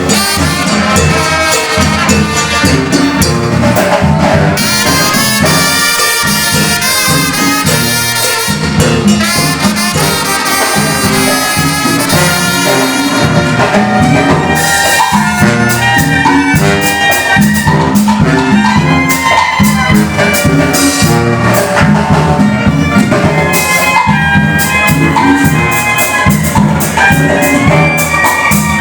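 Mexican banda music: a brass band with trumpets and trombones playing a melody over a steady bass and percussion beat.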